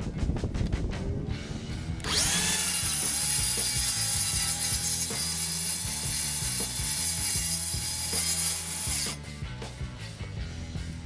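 A power tool starts about two seconds in, runs steadily for about seven seconds, and stops suddenly.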